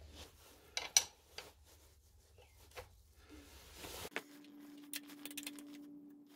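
Steel ring spanner clinking on a pit bike's rear axle nut as the nut is loosened. There are a few sharp metallic clicks, the loudest about a second in. A faint steady hum takes over about four seconds in.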